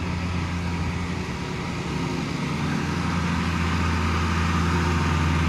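A motor-vehicle engine running with a steady low hum over street noise, getting a little louder about halfway through.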